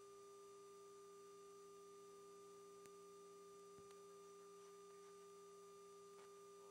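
Near silence on the intercom line between calls: only a faint, steady electrical hum made of a few held tones.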